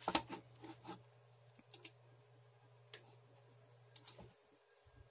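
Scattered light clicks, several in the first second and single ones later, over the low steady hum of a running desktop PC that stops about four seconds in.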